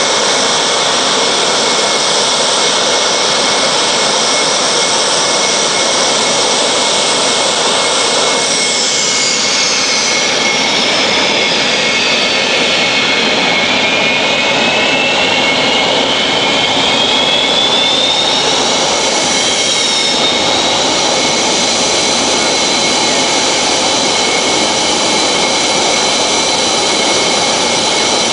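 Mirage jet fighters' engines running loudly on the apron, a steady jet roar with high whines. About eight seconds in, one whine falls in pitch; from about thirteen to twenty seconds in, another whine rises and then holds.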